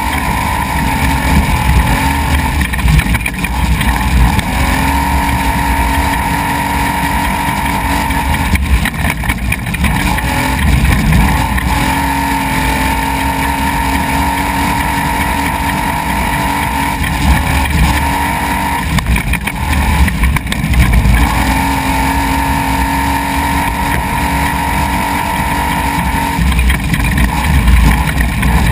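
Desert race truck's engine held at high revs as it drives fast over a rough gravel track, a steady drone that breaks off twice, about nine and nineteen seconds in, before returning. Heavy low rumble from the rough ground and wind runs under it throughout.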